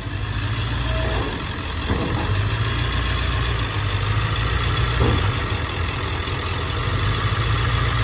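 Semi truck's diesel engine running steadily with a deep, even rumble and a few faint knocks.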